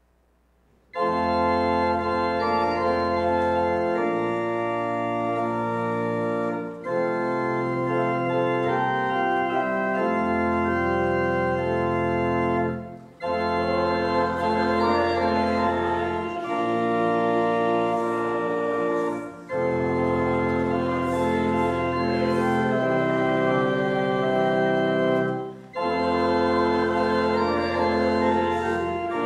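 Organ playing a hymn tune in held chords, starting about a second in, with short breaks between phrases about every six seconds.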